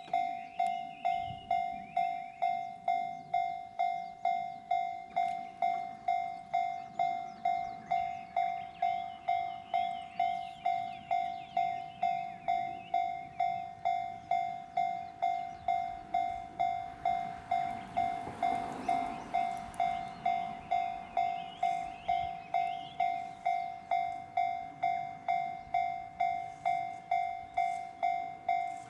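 Japanese railway level-crossing warning bell ringing, an electronic ding repeating evenly a little under two times a second, the signal that a train is approaching. Birds twitter over it, and a short swell of rumbling noise rises and fades about two-thirds of the way through.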